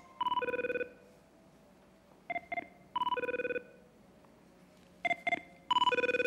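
Mobile phone ringing: an electronic ringtone of two short beeps followed by a longer warbling tone, repeating about every three seconds.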